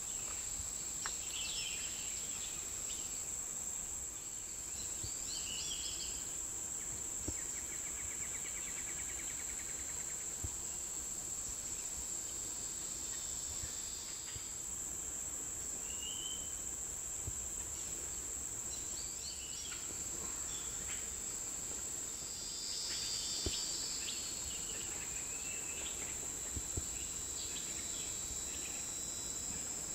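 Steady high-pitched drone of insects, with scattered short bird chirps and a brief rapid trill about seven seconds in.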